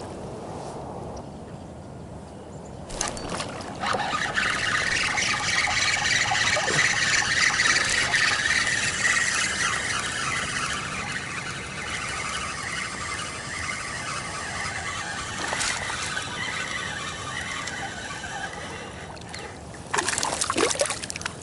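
Spinning reel cranked steadily on the retrieve, a whirring whine that wavers with each turn of the handle, starting just after a cast. Near the end a hooked fish splashes and thrashes at the surface.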